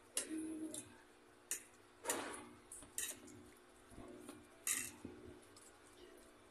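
Metal forks clinking and scraping against ceramic plates as spaghetti is twirled and eaten, a handful of scattered short clinks about a second apart.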